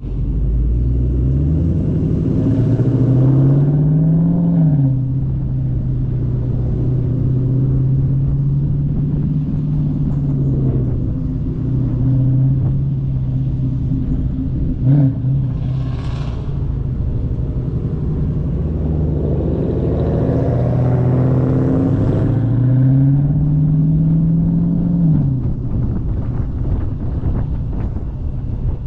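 Dodge Charger Scat Pack's 392 HEMI V8 running under way, heard from outside at the rear of the car. It accelerates, its note rising for a few seconds, then lets off and cruises steadily, and about two-thirds of the way through pulls up through the revs again and drops back.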